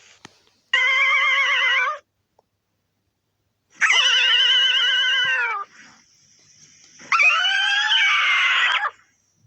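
Godzilla roar sound effect, heard three times as separate drawn-out, pitched roars of about one and a half to two seconds each. The first roar wavers in pitch, and the last shifts in pitch partway through.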